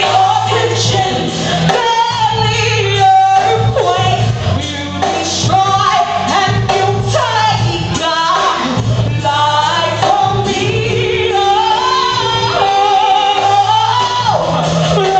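A woman singing lead into a microphone over backing music with a steady low bass line, holding and bending long notes.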